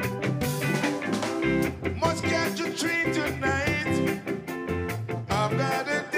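A live ska band playing: drums, bass, electric guitar and organ in a steady, bouncy rhythm.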